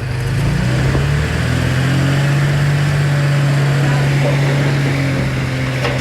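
Heavy diesel engine of earthmoving equipment running hard. Its pitch rises in the first second, then holds a steady, loud drone.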